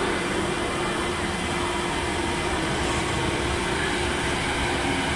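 Beijing Subway DKZ13 train, with a Hitachi IGBT-VVVF traction drive, running into the platform. The rumble of the running gear is steady, with a steady hum through it.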